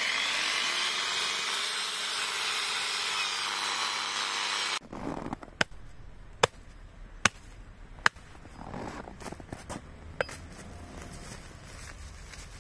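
Angle grinder cutting into a frozen moose head, a loud steady whine that stops suddenly about five seconds in. Then four sharp hatchet chops, a little under a second apart, with a few fainter knocks after them.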